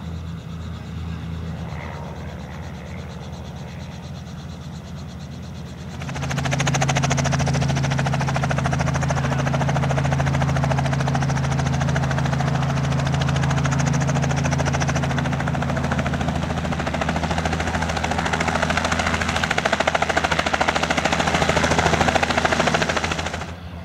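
A light aircraft's piston engine runs steadily at low power while it taxis. About six seconds in, the sound jumps to a light helicopter flying low, its engine and rotor making a fast, even beat that grows louder near the end and cuts off suddenly.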